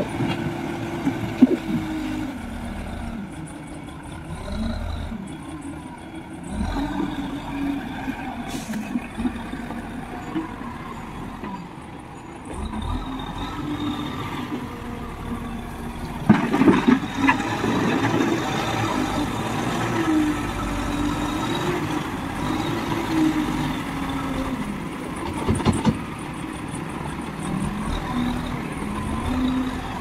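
Tata Hitachi Shinrai backhoe loader's diesel engine running under load, its pitch rising and falling as the front bucket pushes and lifts wet mud. Sharp metallic clanks from the bucket and loader arms come a few times: about a second in, around the middle and again a few seconds later.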